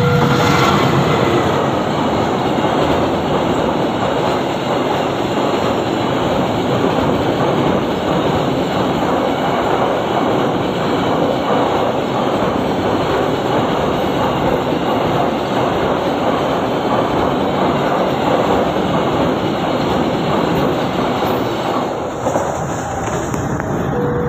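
Container freight train passing at close range: the diesel locomotive goes by first, then a long string of container wagons rolls past with a steady rumble and clatter of wheels on the rails. The noise eases slightly near the end as the last wagons pass.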